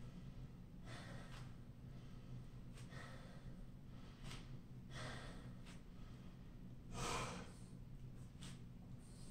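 A man breathing hard after a high-intensity interval, with a heavy breath about every one to two seconds, the loudest about seven seconds in, over a steady low hum.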